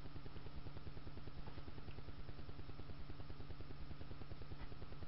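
A steady low hum with a fast, even pulsing, the constant background noise of a small room, with faint light paper rustles from a booklet being handled.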